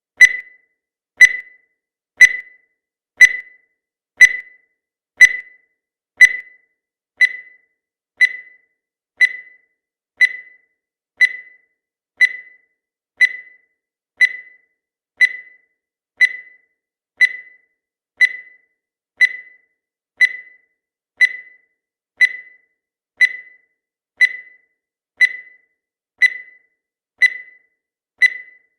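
Countdown timer sound effect: a short, high electronic beep once every second, each one fading quickly.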